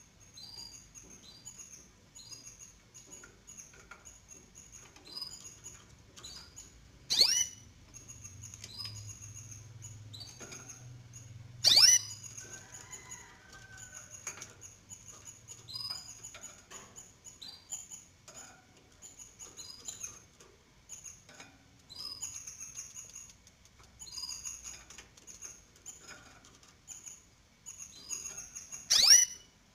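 Three-day-old canary nestlings begging with rapid, faint, high-pitched cheeps. Three much louder, sharp bird calls cut in: one about a quarter of the way in, one near the middle and one near the end.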